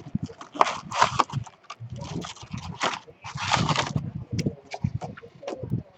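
Packaging of baseball card packs crinkling and rustling as it is opened and handled, with several short rustles and small clicks, the loudest about a second in and again around three and a half seconds in.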